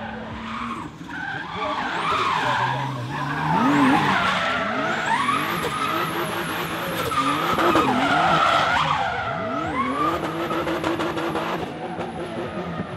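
Drift car's engine revving hard and repeatedly up and down while the rear tyres spin and skid sideways on the asphalt, loudest around the middle.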